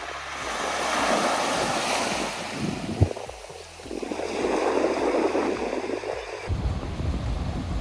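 Ocean waves surging and washing up the beach twice, a few seconds apart, with a sharp knock about three seconds in. Wind rumbles on the microphone near the end.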